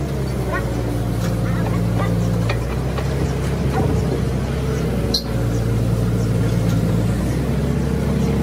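Heavy machinery engine idling steadily, with a few light metallic clicks.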